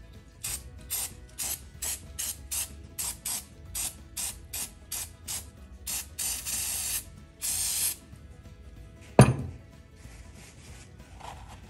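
Aerosol carb cleaner sprayed in a quick string of short hisses, about three a second, then two longer sprays, to clean old gasket material off the engine. About nine seconds in comes a single sharp knock with a short ring, the loudest sound here.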